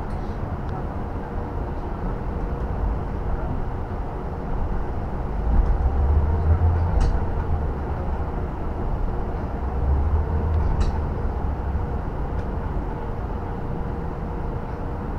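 Cabin noise inside a KAMAZ electric bus moving in city traffic: a steady low rumble of tyres and road with a faint steady hum. The rumble swells louder about six seconds in and again near ten seconds, and there are a couple of short sharp ticks.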